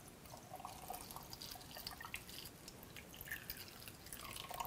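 Pickling brine pouring in a thin stream from a glass measuring cup through a plastic funnel into a glass canning jar of hard-boiled eggs: a faint, irregular trickle and drips.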